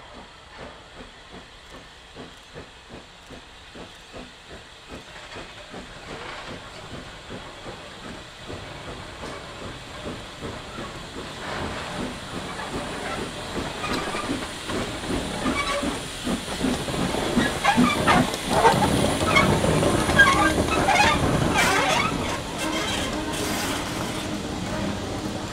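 Small saddle-tank steam locomotive chuffing steadily with steam hiss, the exhaust beats about two and a half a second and growing louder as it approaches and passes close. Near the end its coaches roll by with sharp wheel clicks.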